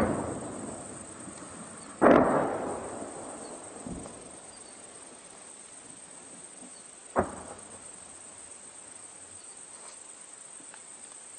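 Booms of explosions from the fighting heard across open country: one right at the start and a louder one about two seconds in, each rumbling away over a second or two. A fainter thud follows around four seconds, and a sharper single bang with a short tail comes about seven seconds in.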